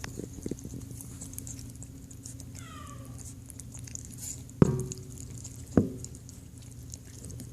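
A pet eating raw ground chicken, with small chewing ticks, one short high call about two and a half seconds in, and two sharp knocks a little over a second apart past the middle.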